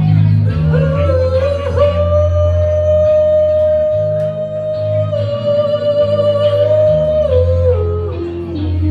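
A man singing karaoke into a microphone over a rock backing track with a steady bass line. He holds one long note from about two seconds in, then slides down in pitch near the end.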